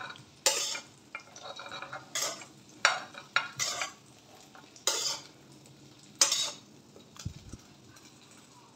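Steel slotted spoon scraping around a kadhai and tipping fried jackfruit and potato pieces onto a plate: a run of sharp scrapes and clinks, roughly one a second, dying away about seven seconds in.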